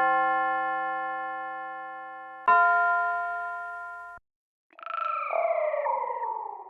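Synth one-shot samples from a dark trap drum kit played in turn: a bell-like keyboard tone ringing and fading, a second one struck about two and a half seconds in and cut off sharply, then a wavering tone that glides downward and fades near the end.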